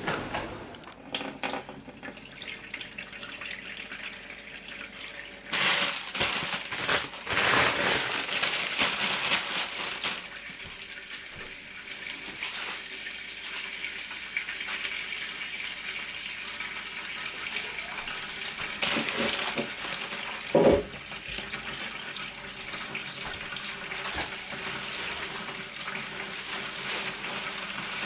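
Tap running water into a sink, with louder gushes between about six and ten seconds in and a single sharp knock about twenty seconds in.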